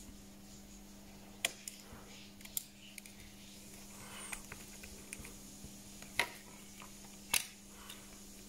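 Scattered sharp clicks and light taps of small repair tools and parts being handled on a smartphone during a screen replacement. Four louder clicks stand out among lighter ticks, over a faint steady hum.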